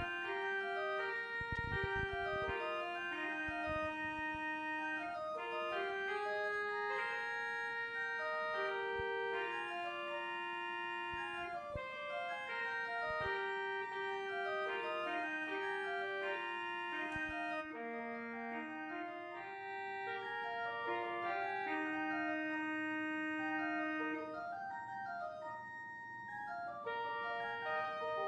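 Church organ playing a slow offertory melody in held, sustained chords, the notes changing every half second to a second or so.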